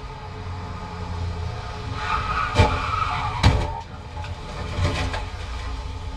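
Cars colliding on a snowy road: two sharp impacts less than a second apart, about two and a half seconds in. A squealing tone runs through them, and a smaller clatter follows about five seconds in, over a steady low traffic rumble.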